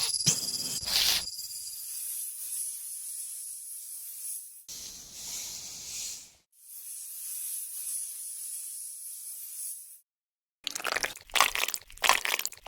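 A steady high hiss, with a fuller rushing swell about five seconds in; after a brief silence, a quick run of crisp crunching and crackling sounds near the end.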